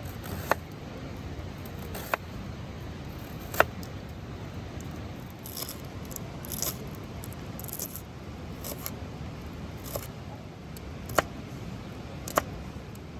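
Low rumble of strong wind with a few brief rustles, broken by about seven sharp clicks or taps.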